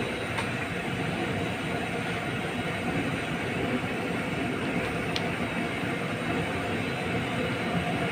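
A large pot of dal boiling hard over a strong flame, making a steady, even rushing noise without pauses. There is a faint short squeak about five seconds in.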